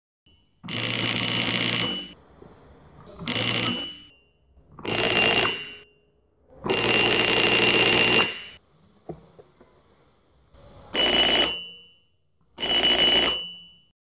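Homemade electric bell: a 5 V DC motor whirls a striker against a small old metal dish, rattling it into a bell-like ring. It rings in six short bursts, the longest about a second and a half, starting and stopping as the push button is pressed and released.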